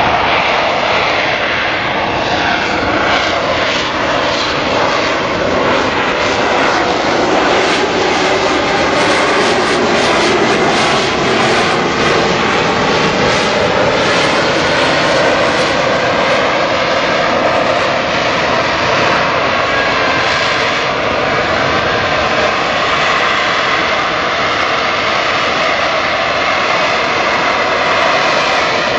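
AV-8B Harrier's Rolls-Royce Pegasus turbofan at high thrust while the jet hovers: a loud, steady jet roar with faint whining tones that slowly waver in pitch.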